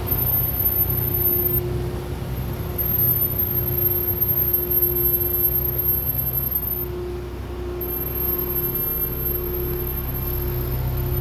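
Front brakes of a 2024 Land Rover Discovery making a steady low moan over low rumble as the vehicle rolls forward: the brake noise the owner is complaining about.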